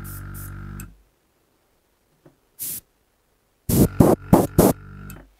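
Small battery-powered airbrush compressor motor humming steadily on its low setting, then stopping abruptly about a second in as it cuts off automatically at pressure. A short hiss follows, and near the end a few sharp clicks and knocks from the unit and hose being handled.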